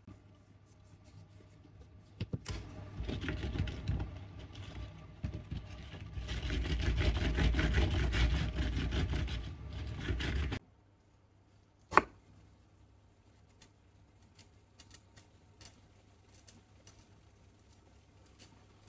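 Okra pods being rolled and rubbed back and forth under the palms on a wooden cutting board: a dense scraping rub that builds and then stops abruptly about ten seconds in. About a second later there is one sharp knock with a short metallic ring, followed by faint light knife taps as okra is sliced into rounds on the board.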